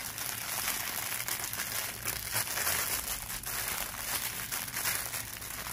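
Clear plastic poly bag crinkling as it is handled and worked open, a steady run of small crackles.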